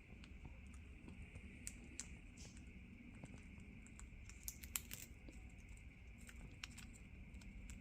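Parrot cracking and chewing a peanut in its beak: faint, irregular small cracks and crunches.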